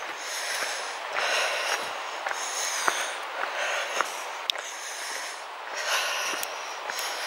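A hiker walking on a stony woodland path, close to the microphone: her footsteps and her breathing come as regular hissy rustles about once a second, with a few sharp clicks from stones underfoot.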